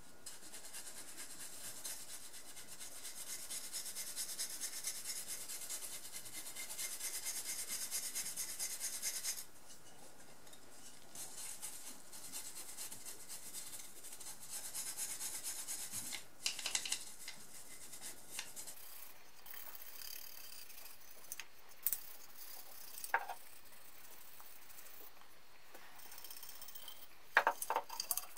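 A small brush scrubbing a wooden saw handle with rapid back-and-forth strokes to clean off grime, a rasping hiss in spells of several seconds with short pauses between. In the second half a few light knocks come as the handle is turned and handled.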